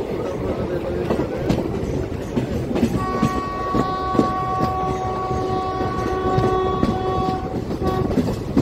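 Passenger train rolling through a station, its wheels clattering over rail joints and points. About three seconds in, a locomotive horn sounds one long, steady blast lasting about four and a half seconds.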